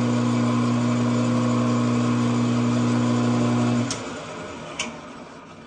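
Metal lathe running at slow speed with a steady hum, switched off nearly four seconds in and winding down, with two sharp clicks as it stops.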